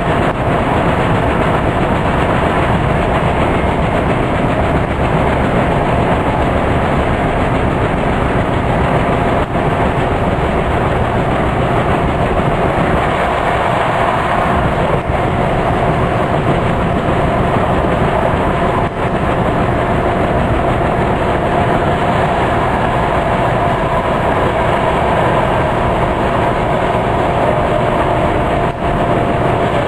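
Steady running noise inside the carriage of a Class 165 diesel multiple unit: the underfloor diesel engine and the wheels on the rails, with a steady whine and a few faint clicks from the track.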